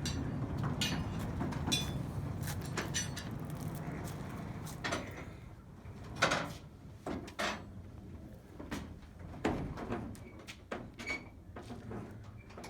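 A large door being slid open with a rumbling scrape for about the first five seconds, followed by scattered knocks and clatters.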